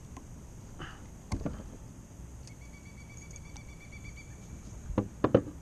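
Knocks of gear being handled against a plastic kayak: one about a second in, then three or four sharp ones in quick succession near the end, the loudest sounds here. A faint, thin, high note with a slight pulse runs for about two seconds in the middle.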